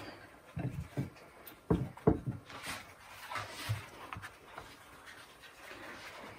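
Hands pressing and fitting a rolled-out pie crust into a ceramic pie dish on a wooden worktop: a few soft thumps in the first two seconds, then quieter rustling of the dough.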